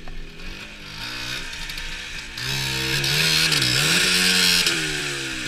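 Dirt bike engine revving under load as the bike is ridden over a log crossing. The revs climb sharply about halfway through, dip briefly, climb again, then drop away near the end.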